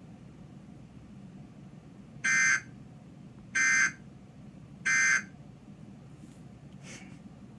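Emergency Alert System end-of-message tones: three short, identical bursts of SAME digital data screech, a little over a second apart, signalling that the alert has ended.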